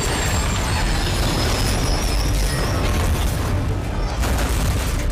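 Film sound effects of a giant robot fighting a monster: loud, steady mechanical clanking and whirring over a deep rumble, with booms.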